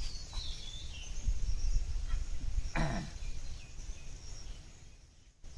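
Rural outdoor ambience: a steady high insect buzz over a low rumble, with bird calls. One call glides down in pitch near the start, and a short call falls steeply about three seconds in.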